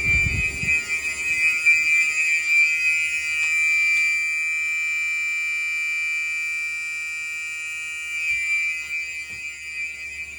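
Fire alarm horns sounding one continuous high-pitched tone, set off by a key-activated pull station in a system test.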